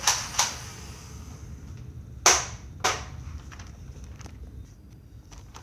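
Plastic Nerf blaster being worked and fired: four sharp clacks, two close together at the start and two more about two seconds later, half a second apart.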